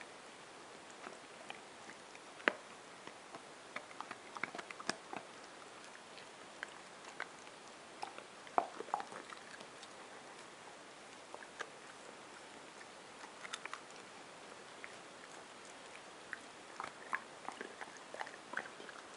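Bluetick coonhound gnawing on a chew held between its front paws: irregular clicks and crunches of teeth, coming in short clusters with pauses between.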